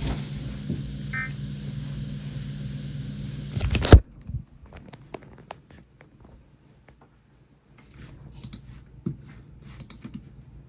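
Dead air on a weather-radio channel: a steady hum and hiss with no speech, cut off by a loud click about four seconds in. After that it is nearly silent, with scattered faint crackles of radio static.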